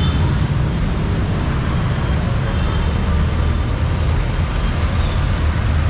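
City street traffic: motor vehicle engines running close by with a steady low rumble over general road noise.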